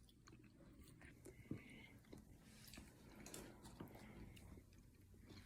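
Near silence: room tone with a few faint, soft clicks.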